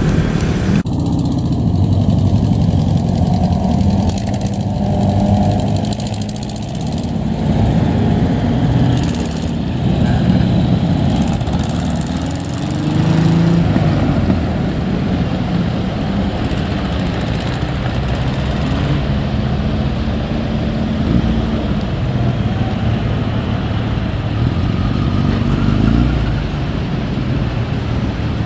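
A procession of classic cars driving slowly past one after another, engines running at low speed, with one engine's pitch rising and falling briefly about halfway through.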